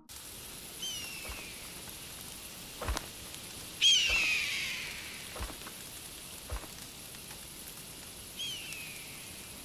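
A steady hiss of outdoor ambience with three short, high cries that fall in pitch, the loudest about four seconds in, and a few scattered soft knocks.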